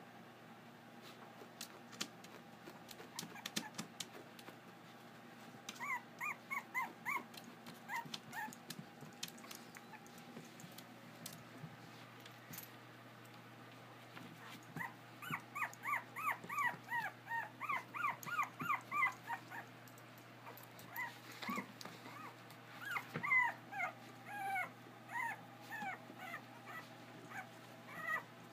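Puppies whining and whimpering in quick runs of short high whines, each dropping in pitch, about three a second, the excited whining of pups waiting for their breakfast. A few light clicks and taps come first, before the whining starts.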